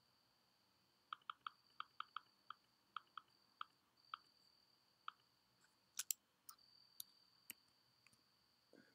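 Faint clicking of a computer keyboard and mouse. A quick run of about ten key taps comes in the first few seconds, then a few sharper clicks, over a faint steady high whine.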